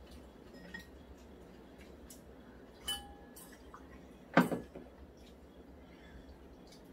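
Tableware sounds during a noodle meal: a ringing clink of chopsticks against a ceramic bowl about three seconds in, then a louder, sharper knock of tableware set down on the table about a second and a half later.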